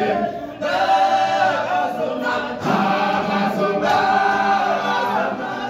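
All-male a cappella choir singing in isicathamiya style, voices in close harmony holding long chords. The phrases break off briefly just after the start and again about two and a half seconds in, then carry on.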